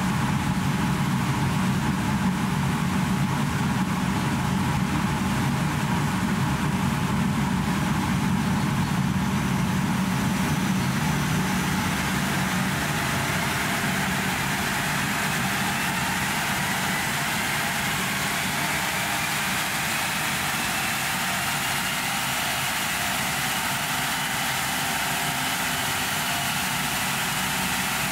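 BMW iX electric SUV running on a roller test stand. A steady hum gives way, about halfway through, to a faint whine that rises in pitch and then holds as the wheels and rollers spin up.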